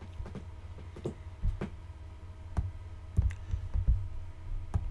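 Irregular clicks and light thumps from a computer mouse and keyboard being used at a desk, over a steady low hum.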